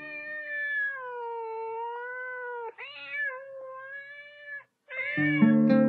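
A domestic cat meowing in long, drawn-out calls, each lasting about two seconds with a slightly wavering pitch: two calls, then a third about five seconds in as held musical notes begin underneath.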